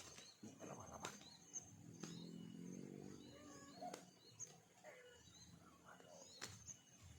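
Faint, short chirps of small birds, with a few sharp clicks. A low, even humming tone comes in about two seconds in and fades out about two seconds later.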